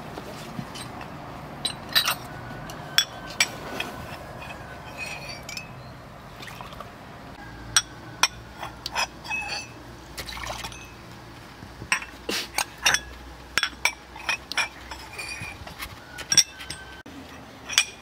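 Tableware clinking again and again in sharp, irregular knocks, each with a short ring, along with liquid being poured.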